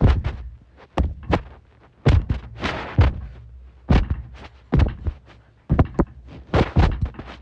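A rapid series of heavy thuds and whacks, about a dozen, one or two a second, from punches landing in a mock fight.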